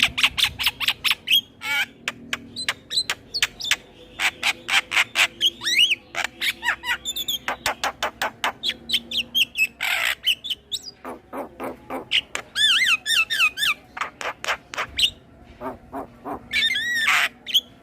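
Male Javan myna (jalak kebo) singing a long, varied song. It runs fast strings of sharp clicking notes, looping whistled notes, and a harsh rasping call about ten seconds in.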